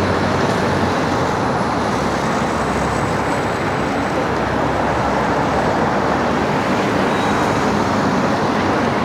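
Steady traffic noise of a busy city street, with motor vehicles running past.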